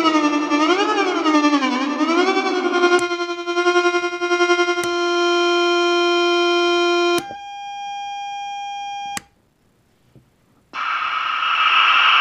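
Unreachable Void noise machine pedal output: a buzzy, synth-like tone warbling up and down in pitch, which locks onto a steady note about three seconds in, with a few sharp switching clicks. Past the middle it drops to a thinner, quieter single tone, cuts out to near silence for about a second and a half, then a steady hiss of noise starts near the end.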